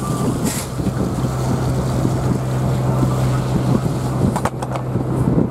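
A fishing boat's engine running steadily, a low even drone, with wind buffeting the microphone. There are a few faint clicks in the second half.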